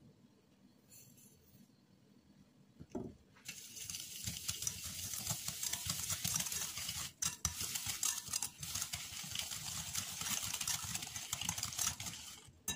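Small wire whisk beaten briskly by hand through a thick, creamy mixture in a ceramic bowl, its wires scraping and rattling against the bowl in a fast, steady run. It starts about three and a half seconds in and stops just before the end.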